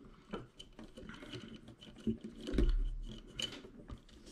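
Hands handling the airsoft gun's lower receiver and its wiring on a wooden table: scattered small clicks and scrapes, with one dull thump about two and a half seconds in.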